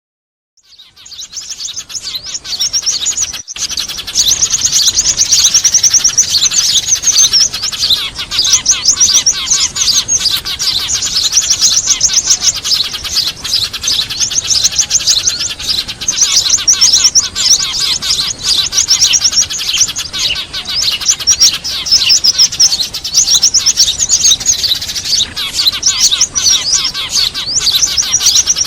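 Dense, unbroken chattering of a flock of Eurasian tree sparrows mixed with other small birds, rapid high chirps overlapping one another: a trapping-lure recording of excited, noisy small birds. It fades in over the first few seconds.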